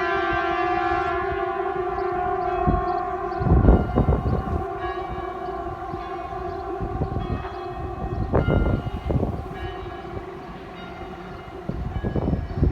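Civil defence air-raid siren sounding a steady tone that drops away abruptly about three and a half seconds in. Fainter steady siren tone lingers behind it, with low rumbling swells of outdoor city noise.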